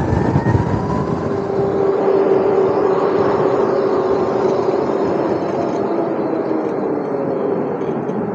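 Modified Razor electric dirt bike riding at speed: wind rushing over the microphone, with a steady whine from the electric drive.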